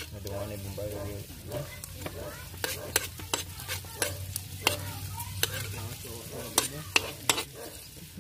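A metal spoon stirring diced pork and chopped onion frying in a wok, with irregular clicks and scrapes of the spoon against the pan over a steady sizzle.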